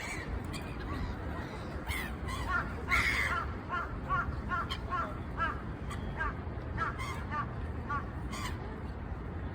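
A gull calling in a rapid series of short, arched yelping notes, about three a second, starting a couple of seconds in, over a steady low rumble.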